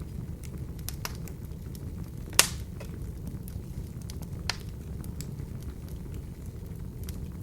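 Wood fire burning in an open fireplace: a steady low rumble with scattered crackles of the burning logs. A loud sharp pop comes about a third of the way in, and a smaller one a little past halfway.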